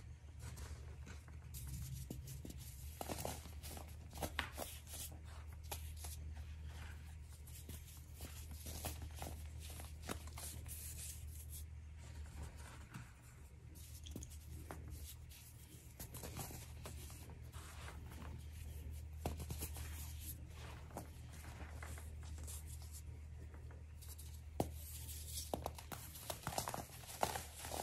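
Hands squeezing and crumbling dried baking-soda powder and a molded baking-soda sea star, making soft crunches and a steady patter of small crackles. The crunches get louder and sharper near the end. A steady low hum runs underneath.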